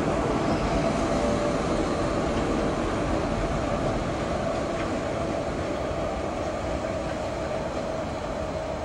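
Two-car electric tram set running along the track and moving away, a steady rolling rumble with a held humming tone, fading gradually.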